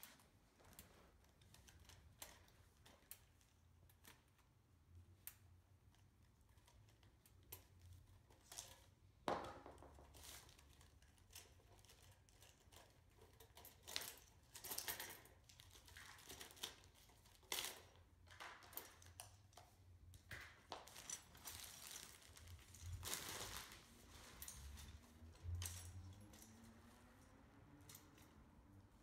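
Faint handling sounds of a folding wire utility cart being unpacked: scattered light clicks and knocks from the metal wire frame and plastic wheels, with brief crinkling of plastic wrap. One sharper click comes about nine seconds in.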